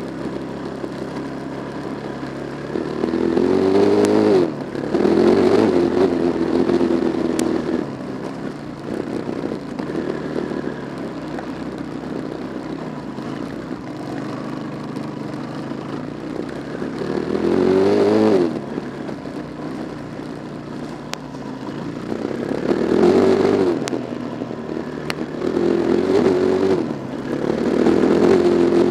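Car engine accelerating under way, its revs climbing and dropping back several times as through gear changes, over steady road noise.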